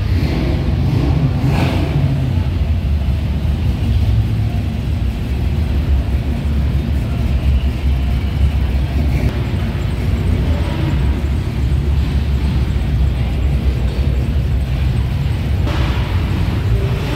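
Show cars driving slowly past one after another, their engines running with a steady low rumble. Among them is a 1980s Ford Mustang GT 5.0 with its V8.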